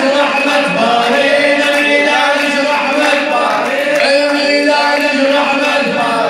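A male radood chanting a celebratory devotional song through a microphone and PA, with a chorus of men's voices singing along in unison.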